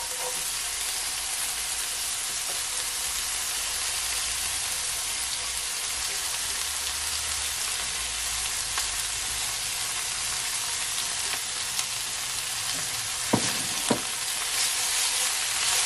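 Onion, carrot and tomato frying in oil in a pan, a steady sizzle as shredded cabbage is dropped in on top. Two short knocks come about half a second apart near the end.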